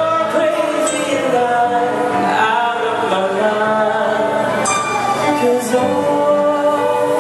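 Amplified live music: a lead voice singing a melody over a band, with two crashes on the drums near the middle.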